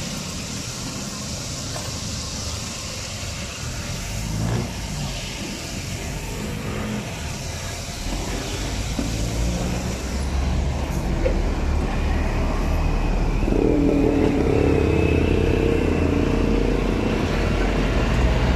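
Motor vehicle engine running close by in street traffic, growing louder from about halfway and loudest near the end, over the steady sizzle of oil in a street-stall deep-fryer.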